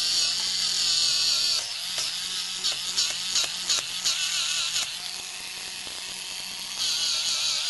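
Emjoi MICRO Nail battery-powered electric nail buffer running, its small motor spinning the micro smooth buffing head with a steady whine. From about two seconds in the sound drops and turns uneven, with small ticks, while the head works on a fingernail. It grows louder again near the end.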